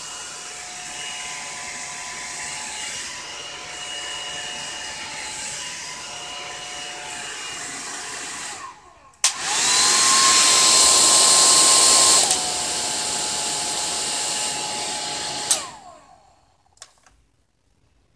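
Blow dryer brush (a hair dryer with a large bristle brush attachment) running steadily on low, a hum under the rush of air. About eight and a half seconds in it cuts out briefly. It comes back much louder with a rising whine, then drops to a lower level about three seconds later. About fifteen seconds in it is switched off with a click and winds down to quiet.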